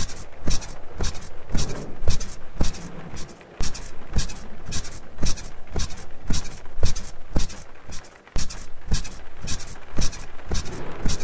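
Bed springs and mattress squeaking and creaking in a steady rhythm, about two squeaks a second, each with a dull thump underneath.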